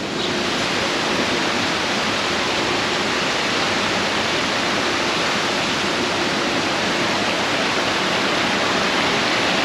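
Steady rush of water falling into an ornamental pond, a continuous even roar with no break.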